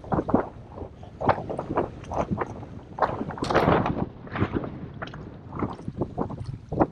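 Water splashing and sloshing against a boat's hull in irregular bursts.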